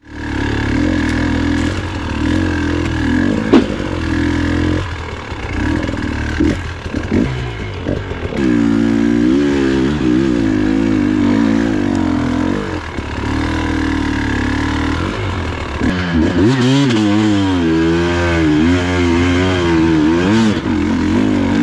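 KTM 300 EXC two-stroke single-cylinder enduro engine being ridden over rough ground, its pitch rising and falling again and again as the throttle is worked on and off. A sharp knock stands out about three and a half seconds in.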